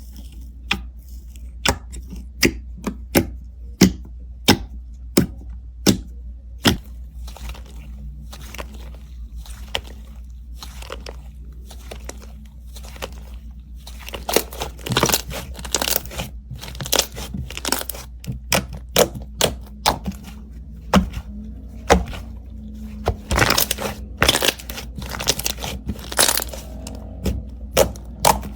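Slime being squeezed and pressed by hand, giving sharp irregular pops and crackles, about one or two a second at first and coming thicker and louder from about halfway. A steady low hum runs underneath.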